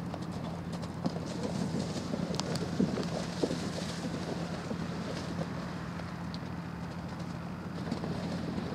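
Horse's hoofbeats and splashing as it canters through a shallow water jump on a cross-country course. Scattered knocks over a steady outdoor hum, with the loudest thuds about three seconds in.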